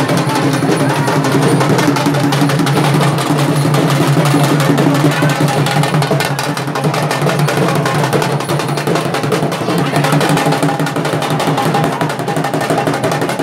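Barrel drums, slung from the players' shoulders, beaten in a fast, dense rhythm for a Bundelkhandi Diwari folk dance, over a steady low tone.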